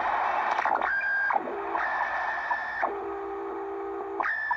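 Shortwave receiver audio from a Tecsun PL-600 being tuned in SSB mode: hiss and static with a high whistle and a lower pair of heterodyne tones that jump to new pitches or drop out as the frequency steps up. The PL-600's analog PLL tuner gives no chuffing or muting between steps.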